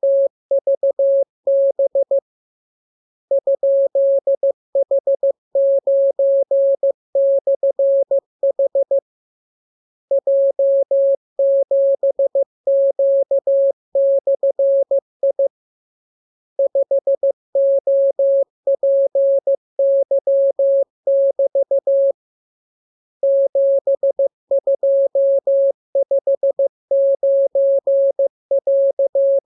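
Morse code practice tone: a single steady beep keyed on and off in dots and dashes. The characters are sent in runs of about six seconds, with a pause of about a second between runs.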